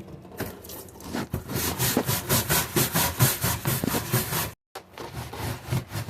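Rapid, rhythmic scraping strokes, about four a second, loudest through the middle, ending abruptly at a cut, followed by quieter handling noise.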